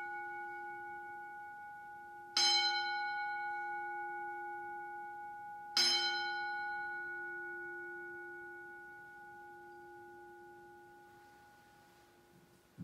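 Altar bell rung at the elevation of the chalice during the consecration: a single clear bell struck twice, about two and a half and six seconds in, each strike ringing on and slowly fading, over the fading ring of a strike just before.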